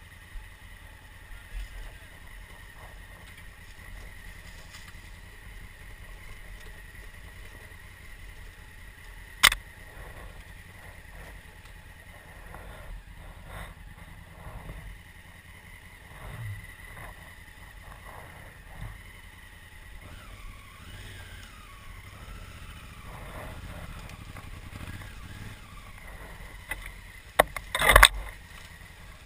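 2016 Honda Africa Twin's parallel-twin engine running at low trail speed with a steady hum, with a sharp knock about a third of the way in and a cluster of louder knocks near the end as the bike goes over rough ground.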